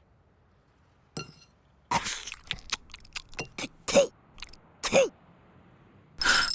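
Cartoon sound effects: a quick run of small clicks and clinks, with two short squeaky pitched sounds near the middle.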